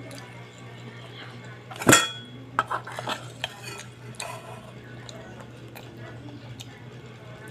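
Metal fork and spoon clinking against a cooking pot while noodles are scooped out. There is one sharp clatter about two seconds in, then several lighter clicks, over a steady low hum.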